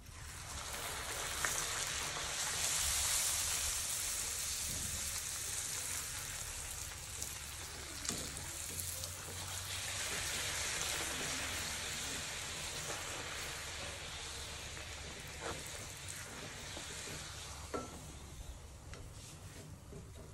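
Poori dough deep-frying in hot oil: a steady sizzle that swells just after the dough goes in and again about ten seconds in, as it is pressed down in the oil with a perforated metal skimmer. A few brief clicks are heard over the sizzle.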